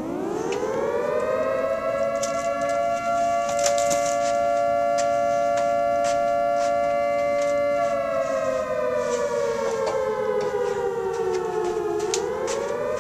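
A wailing siren with a two-note chord: it winds up from a low pitch, holds steady for several seconds, sags lower for about four seconds, then rises again near the end.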